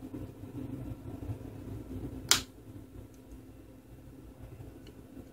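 A single sharp snap about two seconds in, as a plastic pry tool pops a retaining clip loose on the LG Viper phone's frame, over a low steady hum.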